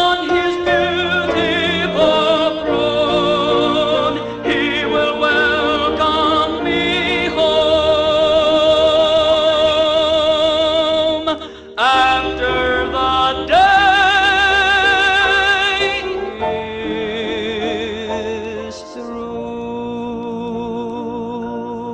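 Tenor voice singing a gospel song with wide vibrato over organ and piano accompaniment, holding long notes. About 16 seconds in the singing falls away and the accompaniment holds sustained chords more quietly.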